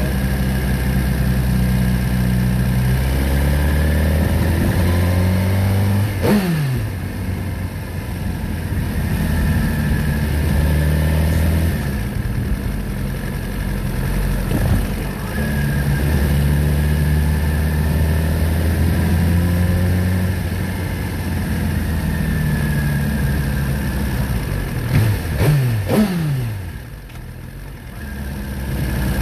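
Motorcycle engine running at low revs with a steady note. Its pitch falls away sharply about six seconds in, and again in a few quick sweeps near the end.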